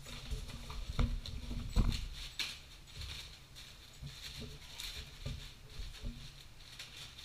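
Crinkling packing material and light knocks against a cardboard box as roller skates are unpacked, busiest in the first couple of seconds.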